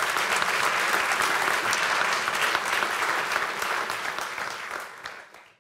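Audience applauding steadily, fading down near the end and then cutting off abruptly.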